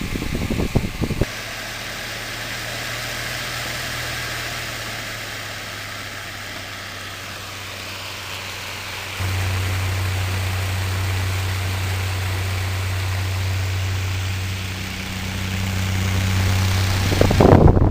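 Fisher-Price 7-inch desk fan running on a replacement motor: a steady rush of air over a low motor hum. The hum steps up louder about nine seconds in. The fan's airstream buffets the microphone in the first second and again near the end.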